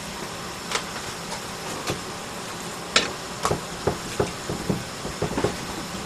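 Clicks and knocks from a metal roasting tin being handled as salmon fillets are laid into it: a few scattered clicks, then a sharper knock about three seconds in and a quick run of lighter knocks.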